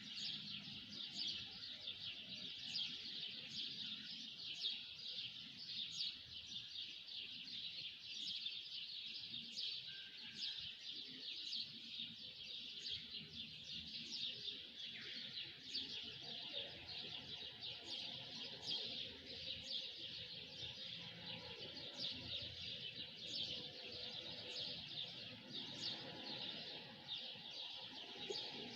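Many small birds chirping together in a dense, continuous chorus of short high calls.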